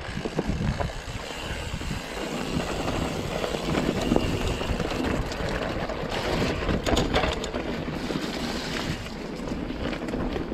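Mountain bike riding over a rough, stony track: tyres crunching on stones and gravel while the bike rattles over the bumps, with a clatter of sharper knocks about six to seven seconds in.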